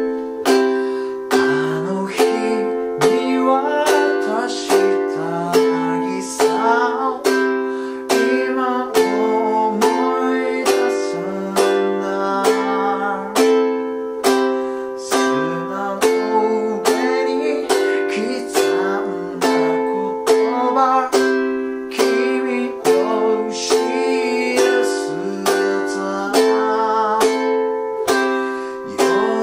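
Thin-bodied G-Labo ukulele strummed in a slow, even rhythm through a repeating F, G7, Am, C chord loop. A man's voice sings along over the strumming from about a second and a half in.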